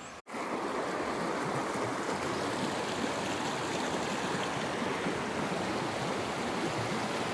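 A river's water running, a steady even rush that starts abruptly after a brief dropout in the sound.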